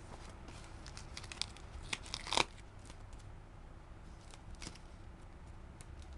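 Clear plastic bag around a satellite receiver crinkling and crackling as it is handled and pulled at, with a cluster of sharp crackles a couple of seconds in, the loudest near the middle, then scattered lighter rustles.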